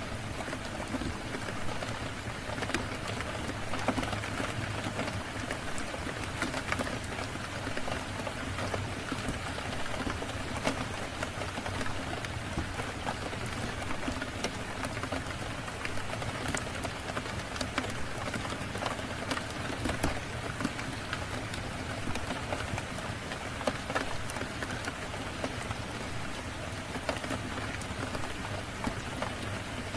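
Steady rain falling, with many scattered sharp ticks and pops throughout.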